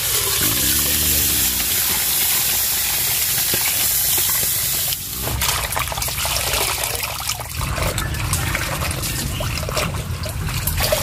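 Water hissing and bubbling in a hot soup pot, just poured onto oil and fried shallots. About five seconds in, the steady hiss eases and gives way to irregular small clicks and clatter over the bubbling.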